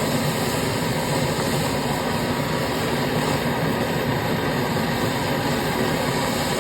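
Gas brazing torch flame burning with a steady hiss while joining a refrigerator's copper line.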